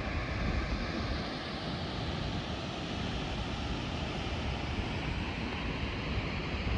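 Wind buffeting the microphone over the steady rush of a large waterfall pouring into its canyon plunge pool.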